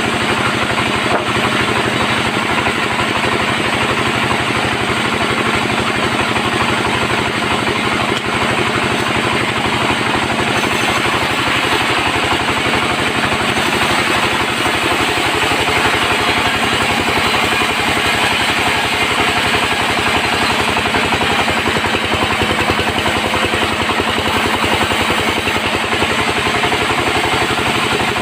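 Sawmill bandsaw running steadily on mahogany timber, a loud continuous machine sound with a fast even pulsing drive underneath.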